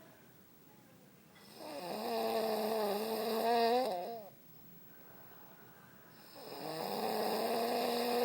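A man snoring hard: two long, loud snores of about two and a half seconds each, a few seconds apart, with quiet breathing between.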